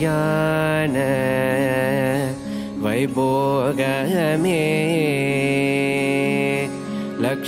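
Indian devotional music in a Carnatic style: a voice singing long, held notes that bend and waver in pitch over a steady drone.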